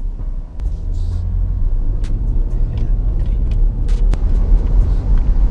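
Low, steady rumble of an SUV's engine and running gear heard from inside the cabin, growing fuller about a second in, with a few light clicks.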